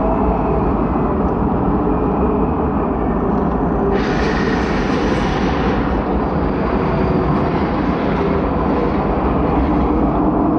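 Loud, steady roar of rushing wind, with a stronger, hissier surge about four seconds in that lasts around two seconds.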